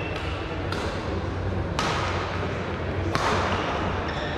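Badminton rally: rackets striking the shuttlecock about once every second or so, each hit sudden and echoing in the hall, with the players' shoes on the court and a steady low hum underneath.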